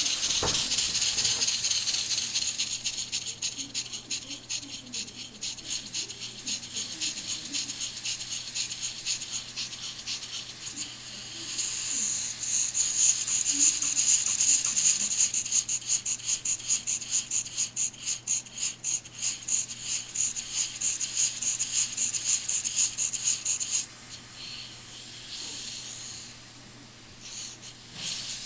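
Model Maudslay marine engine (an oscillating steam engine) running, its exhaust giving a fast, even hissing chuff on each stroke. The beat grows louder about halfway through, then drops off sharply near the end as the flywheel slows almost to a stop.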